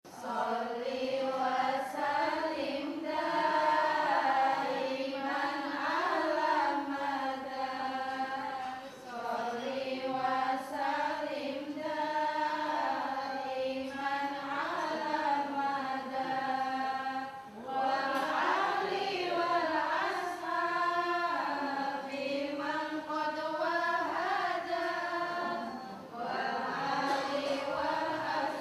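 Chanted singing: a voice holds long, wavering notes that slide between pitches, in phrases several seconds long with short breaks between them.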